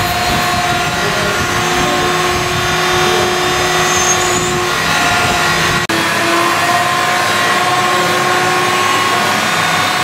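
A handheld electric rotary tool whining steadily as it works pieces of amber. About six seconds in the sound dips for an instant and gives way to the steady hum and whine of a fiber laser marking machine engraving a workpiece.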